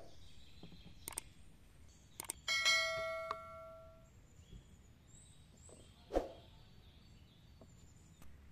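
Tableware being set down on a wooden table: a few knocks and small clicks as items are put down, and about two and a half seconds in a ringing clink of tableware that dies away over about a second and a half.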